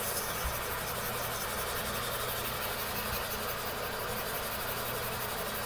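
Fine-grit wet sandpaper rubbed by hand over a cured gelcoat repair patch on a fiberglass bathtub: a steady, soft hiss.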